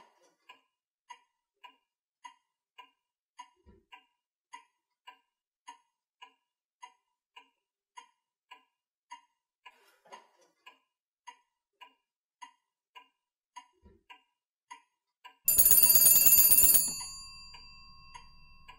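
A clock ticking steadily, a little under two ticks a second. About three-quarters of the way through, an old rotary telephone's bell rings loudly once. The ring lasts over a second and then trails off.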